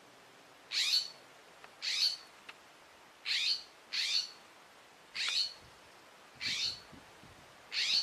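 Scrub-jay giving seven short, harsh calls, roughly one a second: scolding calls as it mobs a snake.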